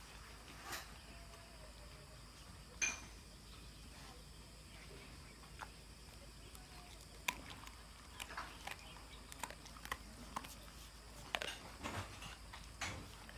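Dog chewing and crunching raw fish bones: scattered sharp cracks, coming thick and fast in the last five seconds.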